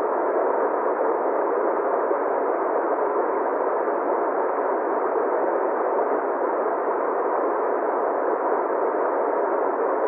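Steady, muffled rush of falling water from a small waterfall, with no change in level.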